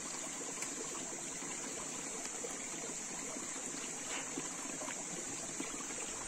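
Shallow rocky stream flowing steadily, a constant even rush of water.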